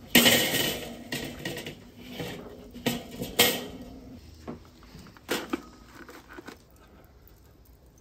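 Metal clanks and rattles of a steel cooking grate being set down on a Weber kettle grill and shifted into place: a sharp clank at the start, two more around three seconds in and one past five seconds, with lighter scraping between.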